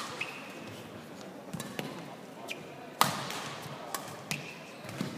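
Badminton rally: rackets hitting the shuttlecock with sharp cracks, the loudest about three seconds in, along with short squeaks of court shoes on the floor.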